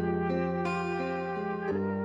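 Harmonica improvisation in C minor: slow, held chords, changing to a new chord near the end.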